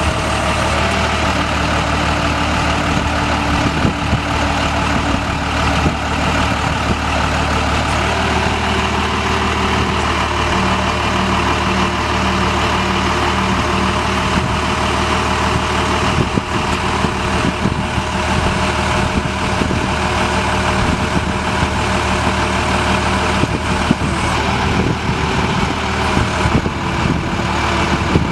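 Cummins 5.9-litre inline-six diesel engine of a 1993 Freightliner FL70 truck idling steadily.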